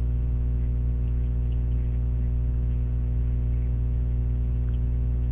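Steady low electrical mains hum with a stack of evenly spaced overtones, unchanging throughout.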